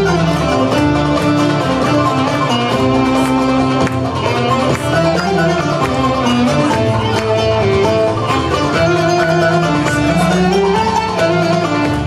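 Turkish classical music ensemble playing a flowing melody in makam Hüseyni, led by violin and plucked strings.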